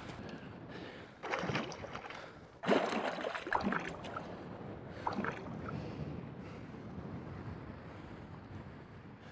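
Sea water sloshing and splashing around a wader standing waist-deep in the surf, over a steady wash. The water rises in two louder bursts, one about a second and a half in and the loudest near three seconds in.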